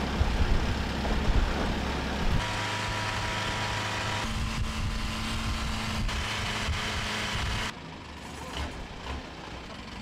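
Long-tail boat's engine running steadily while the boat is underway. The engine note changes abruptly about two seconds in and the sound drops much quieter near the end.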